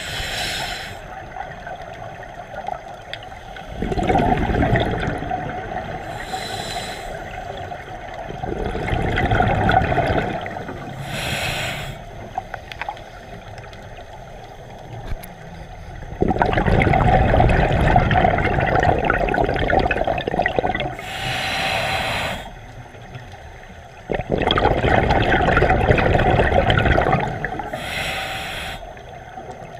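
Scuba diver breathing through a regulator underwater. A short, high hiss on each inhale is followed by a few seconds of rumbling, gurgling exhaust bubbles, about one breath every five to eight seconds.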